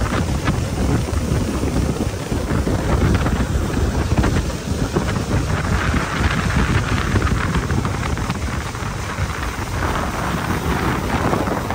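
Wind buffeting the microphone aboard a small boat running under way, a loud steady rumbling rush.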